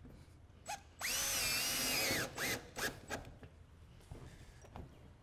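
Cordless drill driving a roofing screw down through a crest of corrugated COLORBOND steel sheeting: one run of just over a second with the motor whine wavering in pitch, then two short blips of the trigger as the screw is set.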